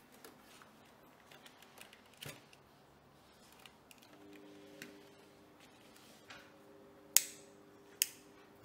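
Small clicks and rattles of a USB cable and plug being handled, with a faint steady hum, then two sharp clicks under a second apart near the end from the lamp's inline on/off switch being pressed.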